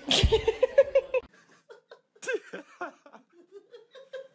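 A person laughing hard in a quick run of "ha-ha" bursts for about a second, with a thump near the start. After an abrupt cut, fainter, scattered short sounds follow.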